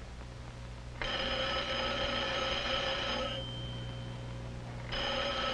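Desk telephone ringing: two rings of about two seconds each, the first about a second in and the second starting near the end.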